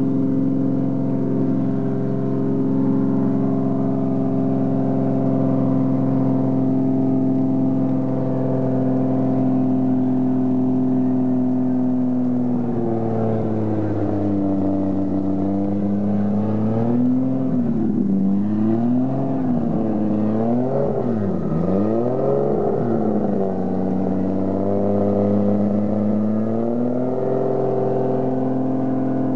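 Drift car's engine running at a steady speed. About halfway through the revs drop and then swing up and down several times, before settling back to the steady speed near the end.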